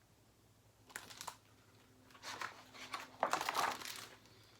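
Pages of a picture book being handled and turned: a brief papery rustle about a second in, then a longer crinkling rustle from about two to four seconds.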